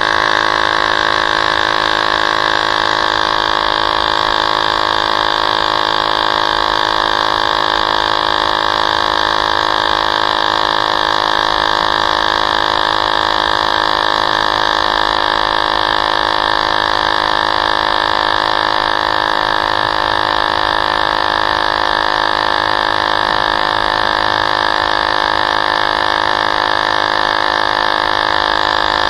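Electric tire inflator running with a steady drone, pumping air into an e-bike tire.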